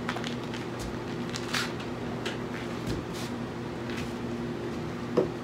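Red dipped rubber coating being ripped and peeled off by gloved hands: scattered short rubbing and tearing sounds at irregular moments, over a steady low hum.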